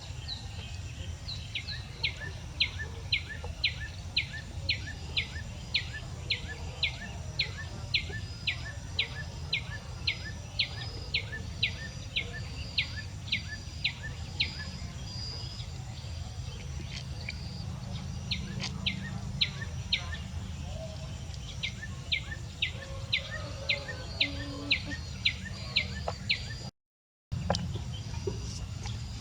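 A bird repeating a short, sharp high chirp about three times a second in long runs, with a few pauses, over steady low background noise. The sound cuts out completely for about half a second near the end.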